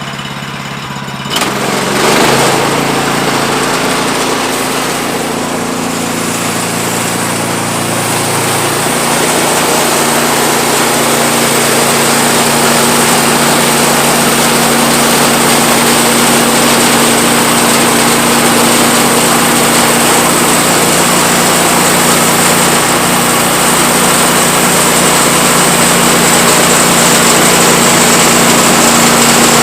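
Engine of a Woodland Mills HM126 portable band sawmill starting up about a second in, then running steadily and growing slightly louder.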